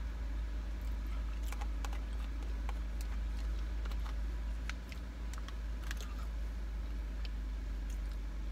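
Scattered light clicks and small crinkles of fingers handling a fried-chicken takeout box, over a steady low hum inside a parked car.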